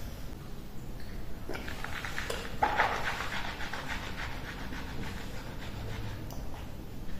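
A man breathing in quick, rapid puffs with mouth noises as he swallows a dry scoop of creatine powder, loudest about two to three seconds in and fading after about four and a half seconds.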